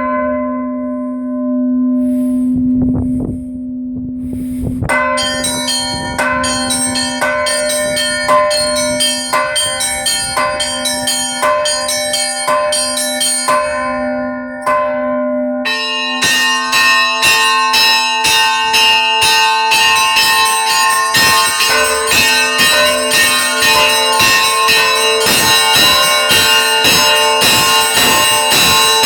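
Church bells rung up close. A deep bell hums on at the start, then from about five seconds in several bells strike one after another in quick succession. About sixteen seconds in, more and higher-pitched bells join and the strikes come thicker.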